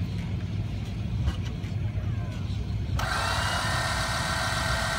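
Steady low engine rumble. About three seconds in, a loud hiss with a steady mechanical whine switches on abruptly and keeps going.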